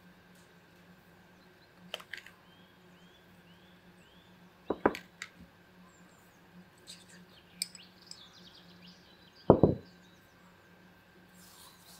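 A few clicks and knocks of a spoon and small ceramic dishes as salt and spices are measured into a bowl, the loudest a single thump near the end as a dish is set down on the table. Small birds chirp in the background, a quick run of short chirps early on and fainter ones later.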